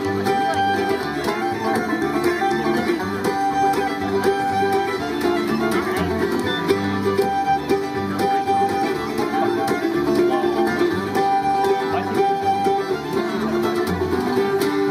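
Acoustic bluegrass band playing a tune: fiddle, mandolin, five-string banjo and acoustic guitar, with a steady low note pattern underneath.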